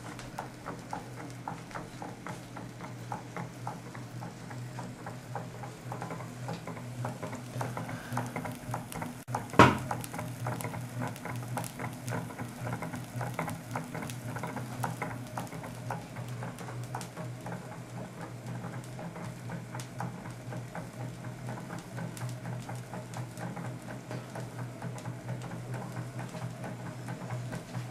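Homemade twin-cylinder Stirling hot-air engine running, its linkage giving a fast, steady patter of small clicks over a low hum. A single sharp knock about ten seconds in.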